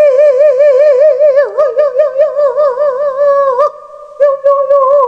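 A woman vocalizing wordless high notes in a light half-voice (轻声唱法), held long with a wide, fast vibrato. The pitch dips and slides back about a second and a half in, and the voice breaks off briefly near the end before picking up again.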